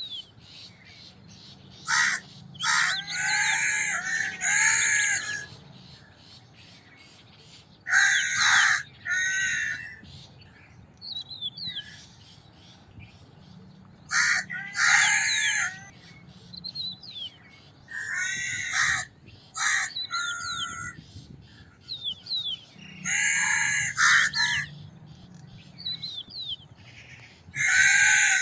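Crows cawing: harsh caws come in bunches of two or three, about every four to six seconds. Faint high chirps of small birds can be heard in the gaps.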